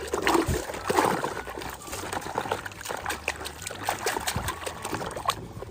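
Water trickling and splashing as a muddy toy truck is rinsed clean, with scattered small clicks and knocks of the toy being handled.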